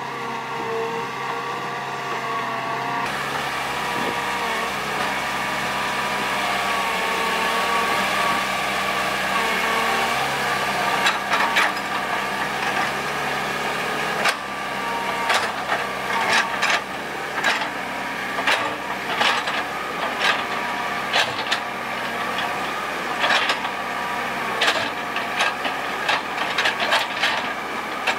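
Hitachi EX120 hydraulic excavator's diesel engine running under digging load with a steady whine. From about the middle on, it is joined by frequent sharp clanks and knocks from the bucket and arm working the soil.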